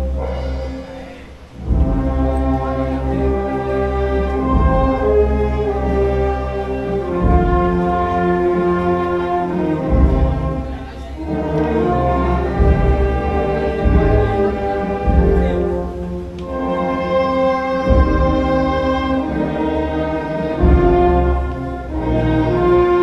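Slow orchestral music with brass, playing long held chords over a low bass, with a short dip about a second and a half in.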